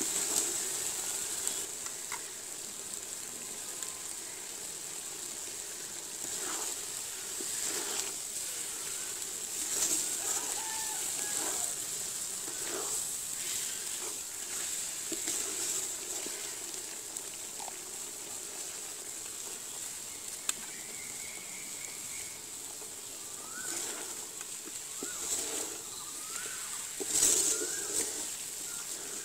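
Wooden spatula scraping and stirring pointed gourds in thick spice paste in a large aluminium pot, in irregular scrapes every second or two over a steady frying hiss. Birds chirp in the background, mostly in the second half.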